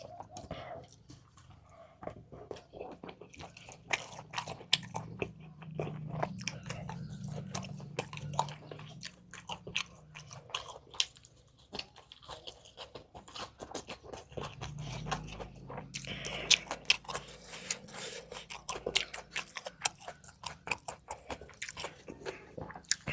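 Close-miked eating: a person biting and chewing crunchy food, with many sharp irregular crunches and crackles over wet chewing sounds.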